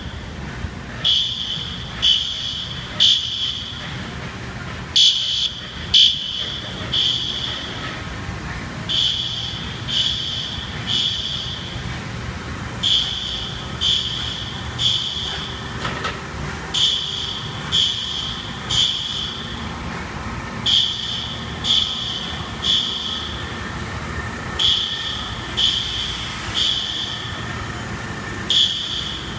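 Fire alarm horns on a Fire-Lite MS-9600LS system sounding the temporal-three evacuation pattern: three short high beeps about a second apart, then a pause, repeating about every four seconds. The beeps echo in a large factory building over a steady machinery hum.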